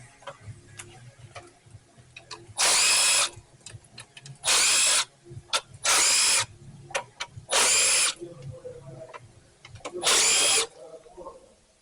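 Power tool running bolts out in five short whirring bursts of about half a second each, with light clicks and handling knocks between them.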